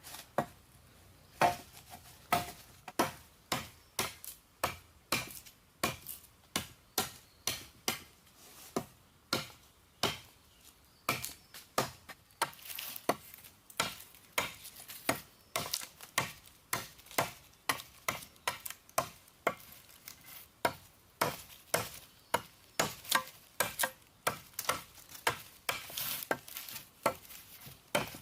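A long series of sharp knocks or strikes, about two a second, uneven in strength.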